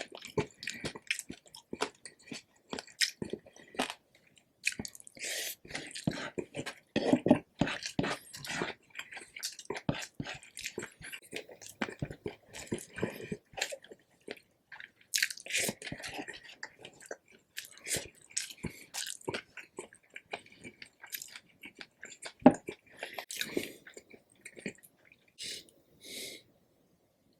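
Close-miked chewing of a lechon silog meal, with many quick, sharp crunches from the crispy roast pork belly skin.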